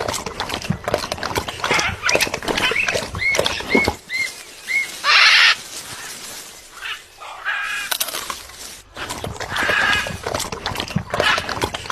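Parrots calling, with many sharp clicks and taps throughout. Four short chirps come a few seconds in, then a loud, harsh squawk about five seconds in, and more calls near the end.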